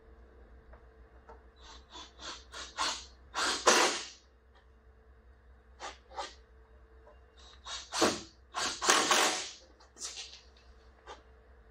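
Handling noise from a strip of camper corner trim being worked into place: a string of short, irregular scraping and rustling sounds, loudest about three and a half seconds in and again around eight to nine seconds in.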